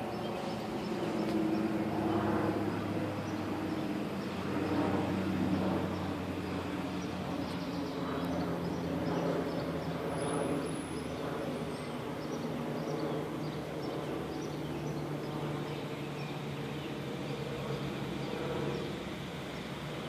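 Steady low engine hum, its pitch drifting slowly up and down, over a faint hiss.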